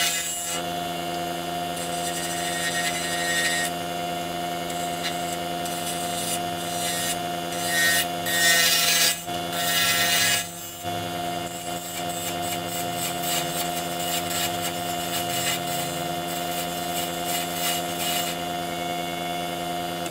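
Small wood lathe motor running with a steady whine while a carbide turning tool cuts the spinning zebrano pen blank, taking off bulk in scraping bursts that are loudest a couple of seconds in and again around eight to nine seconds in.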